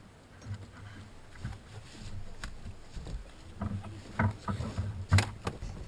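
Thumps and knocks in a small motorboat as a person moves about and shifts an inflatable towable tube, with sharp knocks about four and five seconds in, the second the loudest.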